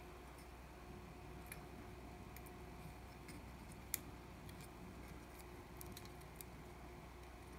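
Faint, scattered clicks of small electronic kit parts being handled, with one sharper click about four seconds in, over a steady low hum.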